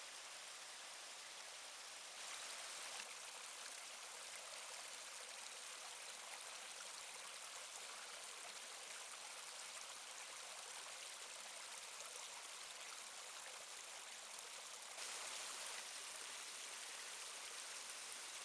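Small forest brook flowing over stones: a steady, even babble of running water, a little louder about two seconds in and again near the end.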